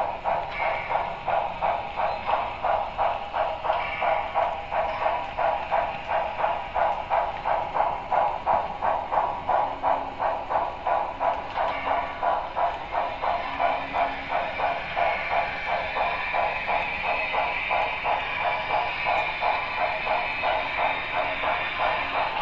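Steam exhaust chuffing from the sound decoder of an HO-scale Broadway Limited Paragon 3 2-10-4 steam locomotive model, a steady beat of about two and a half chuffs a second. In the second half the beat softens under a steadier hiss.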